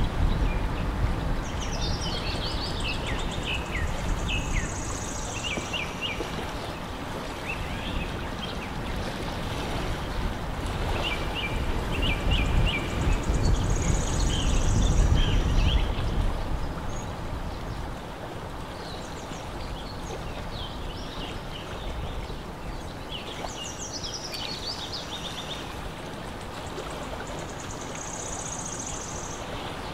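Small birds chirping in scattered runs of quick high notes over a steady rushing noise, with a low rumble that fades out about halfway through.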